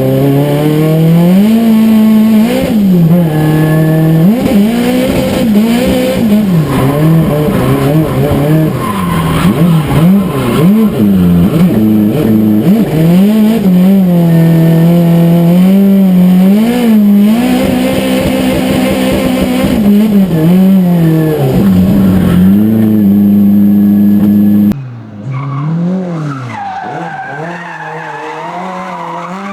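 Nissan SR20DET turbocharged 2.0-litre four-cylinder in a Lada 2105 drift car, revs rising and falling sharply again and again as the throttle is worked, with tyres skidding. Near the end the sound cuts suddenly to a quieter take of the same engine revving.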